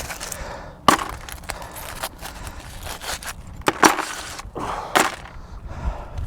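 Sharp metallic knocks and scraping clatters at irregular intervals, as pieces of recovered scrap metal are handled and knocked together.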